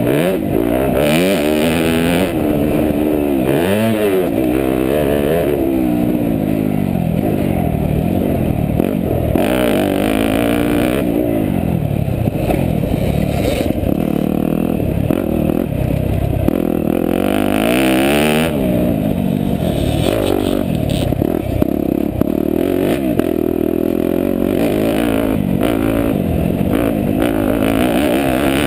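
Yamaha YZ250F's 250 cc four-stroke single-cylinder engine revving up and falling back again and again as the motocross bike is ridden hard on a dirt track, its pitch climbing and dropping every second or two.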